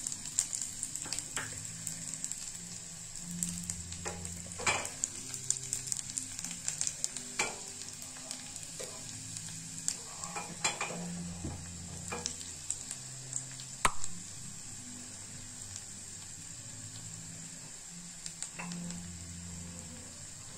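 Chopped garlic frying in hot mustard oil in a small steel tadka ladle over a gas burner: a steady sizzle with scattered crackling pops, cooking toward golden brown. One sharper click stands out about fourteen seconds in.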